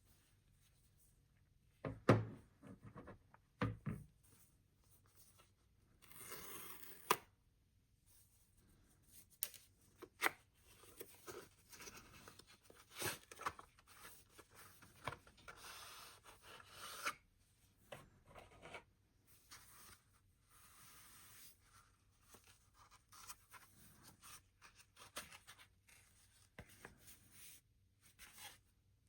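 Hands handling a phone and its packaging: scattered taps, clicks and rubbing, with two sharper knocks around two and four seconds in and a brief hiss of something sliding or peeling about six seconds in.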